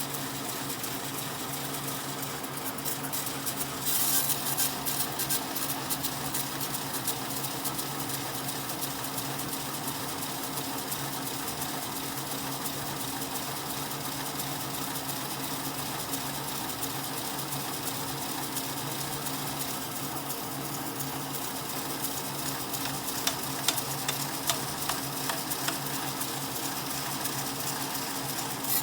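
A woodworking power tool's electric motor running steadily at a constant pitch, with a few sharp clicks near the end.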